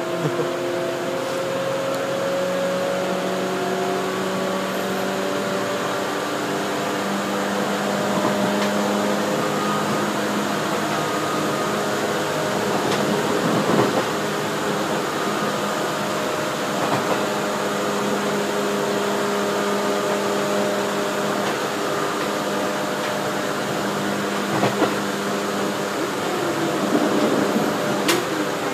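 Commuter electric train running, heard from inside the carriage: a steady rumble with several held humming tones. There are two short sharp knocks, one about halfway through and one near the end.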